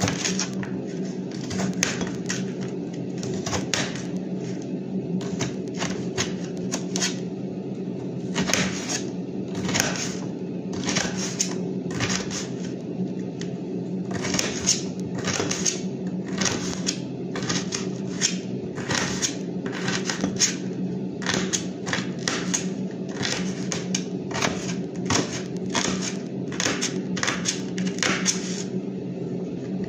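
Small kitchen knife chopping leafy greens against a plate: quick, irregular runs of sharp clicks and taps, busiest in the second half, over a steady low hum.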